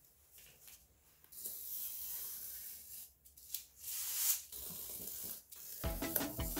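Snap-off utility knife drawn through cardboard along a metal ruler: a few long, hissing scraping strokes. Background music comes in near the end.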